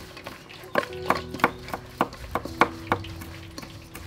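A cleaver chopping on a cutting board in sharp, uneven strokes, about two a second.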